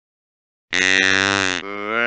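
Red deer calling: a pause of total silence, then one long, even-pitched call about a second long, followed straight away by another.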